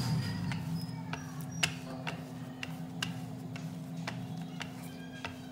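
Wooden rolling pin rolling out a radish-stuffed paratha on a wooden board, with irregular light clicks, about two a second, as the pin knocks against the board, over a steady low hum.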